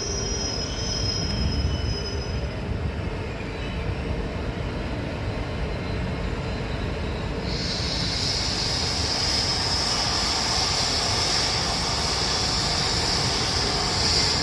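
Railjet passenger train hauled by a Vectron electric locomotive running past with a steady rumble. A faint high wheel squeal in the first couple of seconds gives way to a loud, steady high-pitched squeal that sets in about halfway and holds.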